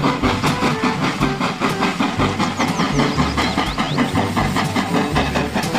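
Steam locomotive sound effect: rapid, even chuffing, about five strokes a second, with steam hiss.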